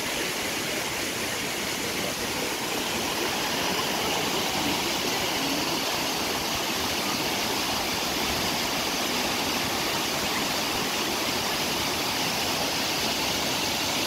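Steady, even rush of river water pouring over rocks and down a waterfall.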